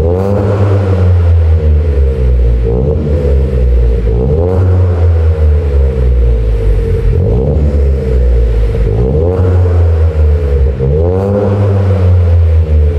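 Ford Fiesta 1.0 EcoBoost three-cylinder engine through a non-resonated Cobra cat-back exhaust, with a loud, deep tone. It is revved up from idle and let fall back about six times, each blip rising and dropping over a couple of seconds.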